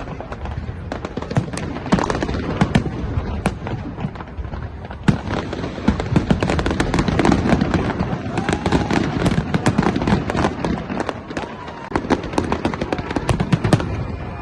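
New Year's fireworks bursting and crackling in rapid volleys, the bangs coming thick and fast from about five seconds in.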